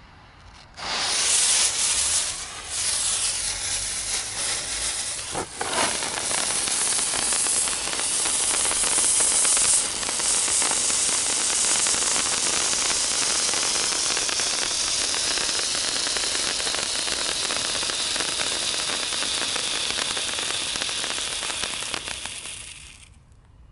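Comet 'Feuerdrachen' hand fountain firework burning: a loud, steady hiss of spraying sparks that starts suddenly about a second in and dies away near the end. A sharp crack about five seconds in.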